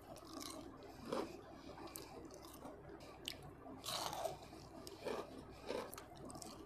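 Close-up chewing and crunching of crispy battered fried potatoes, taken by hand and bitten, with sharp crunches at irregular spacing about once a second.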